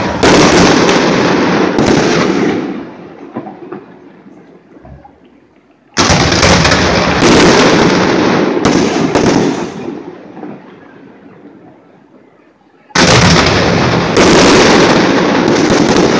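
Fireworks display: aerial shells bursting in loud volleys of several bangs each. One volley is sounding at the start, a second comes about six seconds in and a third about thirteen seconds in, each ringing on and fading over a few seconds.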